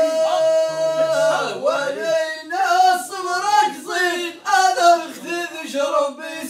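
Male voices singing a line of Amazigh inshad sung poetry: a held note, then a wavering, ornamented melody.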